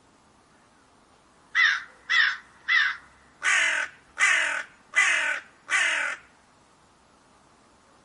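Crow cawing: three short caws about a second and a half in, then four longer, louder caws in steady succession.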